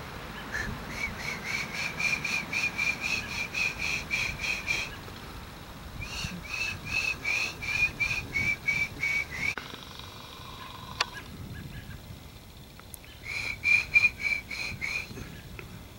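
Short, high whistled notes repeated about four times a second, in three runs with pauses between them. A single sharp click comes about two-thirds of the way through.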